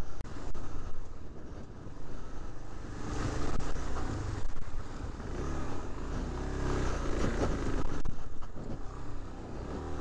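Suzuki DR-Z400 dirt bike's single-cylinder four-stroke engine revving up and down while riding a rough trail, picking up about three seconds in, with scattered knocks from the bumpy ground.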